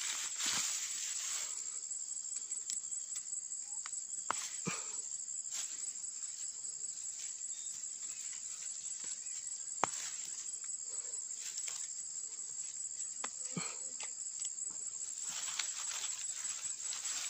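Steady, high-pitched insect chorus shrilling without a break, with a few scattered sharp clicks and soft rustles.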